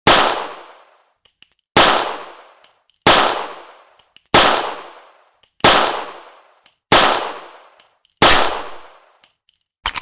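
Walther PPK pistol firing single shots, seven in all at an even pace of about one every 1.3 seconds. Each shot ends in a short, fading echo, and a faint click comes just before each one.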